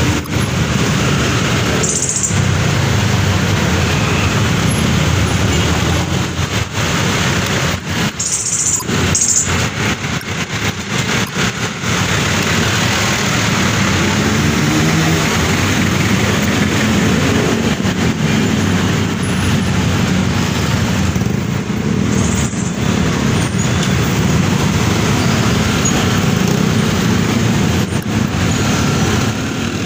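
Motorcycle engine running at low speed in slow, dense street traffic, mixed with the steady drone of the motorbikes and jeepneys around it.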